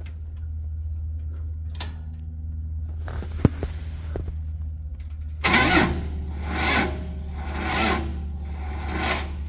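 A sharp click about three and a half seconds in, then an LPG Hyster H155XL forklift's engine cranking on its starter from about five and a half seconds. It turns over extremely slowly, heaving about once a second, and does not catch: a slow crank, no start from a dead or dying battery.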